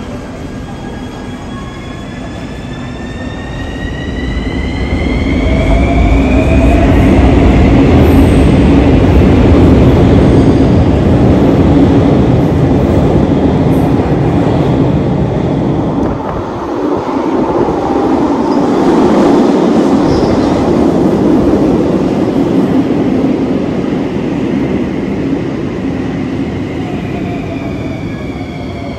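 Bucharest Metro train underway: the traction motors' whine rises in pitch over the first few seconds as it picks up speed, then the loud steady rumble of wheels on rail takes over, with a brief dip about two-thirds of the way through.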